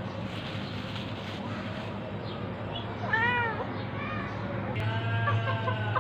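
Domestic cat meowing: one clear meow rising and falling in pitch about three seconds in, a fainter one just after, then a longer drawn-out call near the end.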